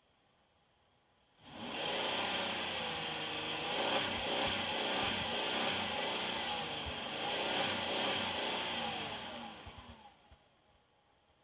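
2001 Chevy Malibu engine revved hard in park, its pitch wavering up and down instead of holding steady: the surge the owner is chasing, with new plugs, wires and filters and no trouble codes. It starts suddenly about a second and a half in, runs for about eight seconds and dies away near the end.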